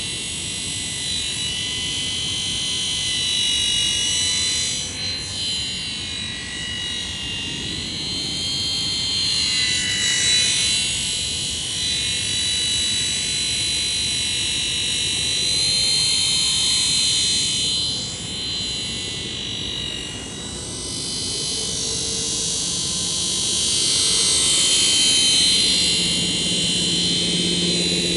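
Helimax Blackhawk radio-controlled model helicopter flying overhead: a high-pitched, steady whine from its motor and rotors whose pitch dips and rises a few times as it passes and changes speed.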